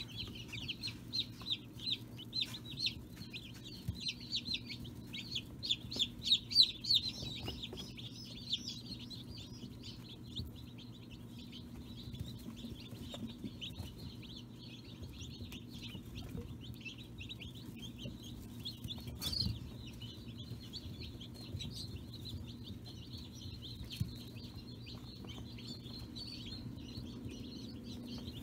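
Newly hatched chicks peeping in a brooder: a chorus of short, high cheeps, louder and choppier in the first several seconds, then fainter and steadier, over a low steady hum.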